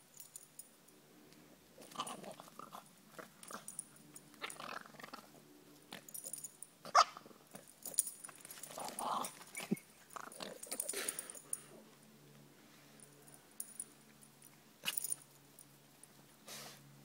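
Pug-mix dog growling in irregular short bursts as it plays with a stick. The bursts are busiest between about 2 and 12 seconds in, with one sharp, loud sound about 7 seconds in and another near the end.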